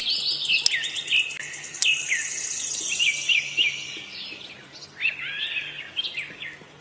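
Birds chirping, with many short quick calls, over a high steady hiss that fades out about four seconds in.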